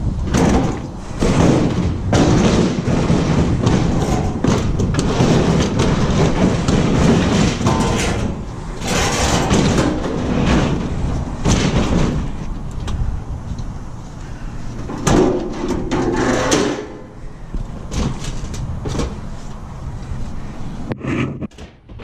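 Knocks, thumps and scraping from a heavy electric range with a glass cooktop being handled and shifted, with a run of irregular clatters through most of the time.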